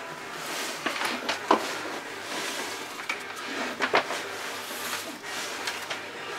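Braided PET wire sheathing rustling as it is bunched and worked along a wire by hand, with a few small clicks and taps.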